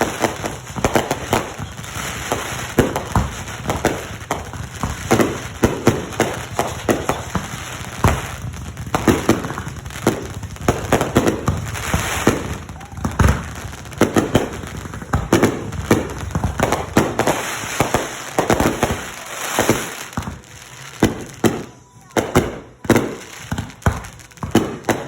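Fireworks going off, a dense, irregular run of bangs and crackling pops that thins out briefly near the end.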